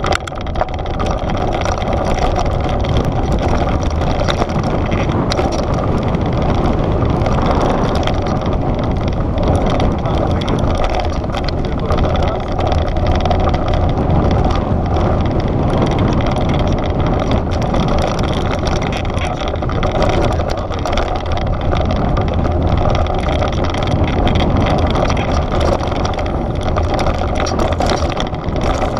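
Devinci Wilson downhill mountain bike riding fast down a rocky dirt trail: tyres crunching over gravel and stones, with many sharp rattles from the bike and wind rushing over the microphone.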